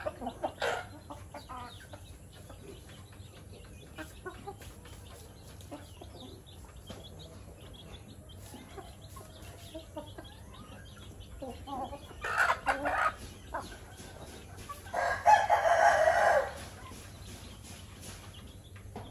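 Chicken flock foraging on dirt: quiet clucking and small pecking and scratching clicks, a short louder squawk about two-thirds through, then a rooster crowing for about a second and a half, the loudest sound.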